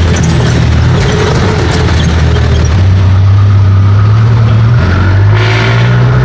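Jeepney's diesel engine heard from inside the passenger cabin while under way: a steady low engine drone that climbs slowly in pitch as it pulls. The drone drops briefly about five seconds in, with a short rush of noise, then climbs again.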